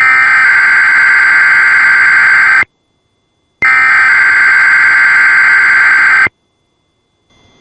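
Emergency Alert System SAME digital header on NOAA Weather Radio: two harsh, buzzing data bursts of about two and a half seconds each, one second apart. This modem-like squeal opens a weekly test alert.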